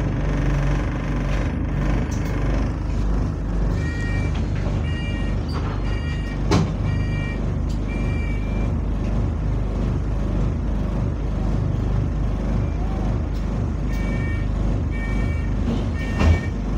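Single-deck bus's diesel engine idling with a rattle, heard from inside the saloon while standing at a stop. High door warning beeps sound in short series from about four seconds in to eight, and again near the end, with a sharp knock twice.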